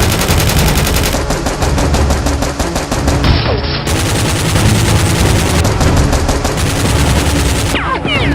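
Rapid machine-gun fire sound effects in continuous fast bursts, with a few short falling whistles near the end.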